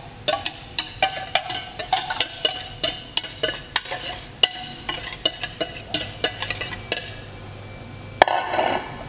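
Wire whisk repeatedly clinking and scraping against mixing bowls, about two or three ringing taps a second, as sugar is knocked out of a glass bowl into a stainless steel bowl. The tapping stops, and near the end the whisk is set down in the steel bowl with one louder clink.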